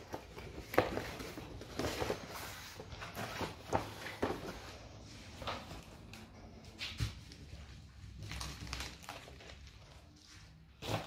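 Cardboard packaging and plastic parts bags being handled on a table: scattered rustles, scrapes and light knocks.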